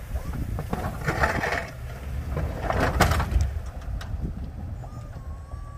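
Ford Super Duty pickup with a Boss DXT plow pushing snow: a steady low engine rumble, with two louder rushing, scraping swells from the blade and moving snow about a second and three seconds in.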